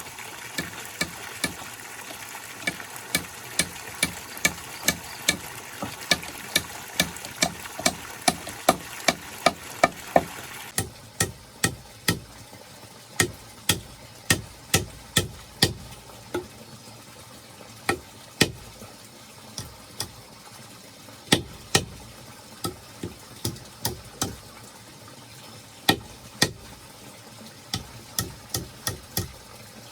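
Repeated hard strikes of a tool, about two blows a second in runs with short pauses, like hammering or chopping during construction work. A steady hiss behind them stops about eleven seconds in.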